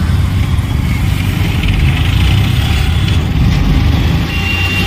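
Road traffic with motor vehicle and scooter engines running close by: a steady low rumble with a hiss of tyres and road noise. A thin high steady tone sets in near the end.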